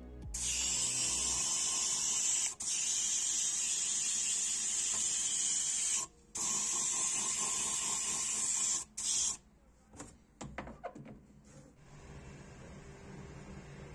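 Compressed-air spray gun hissing as it sprays white enamel onto a goblet, in three long blasts with brief breaks, stopping about two-thirds of the way through. A few light clicks and knocks follow.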